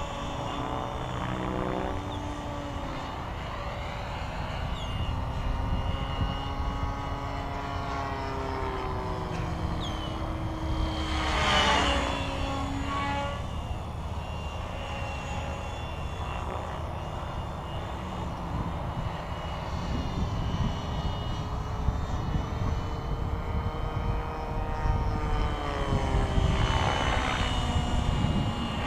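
Align T-Rex 550E electric RC helicopter in flight: the whine of its Kontronik brushless motor and the whoosh of its main rotor. The pitch glides up and down as it manoeuvres, and it is loudest as it passes close about eleven seconds in and again near the end.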